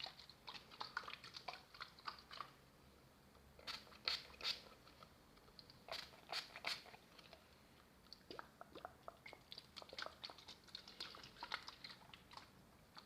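Close-miked ASMR tapping on objects: irregular runs of quick, crisp clicks and taps, broken by short pauses.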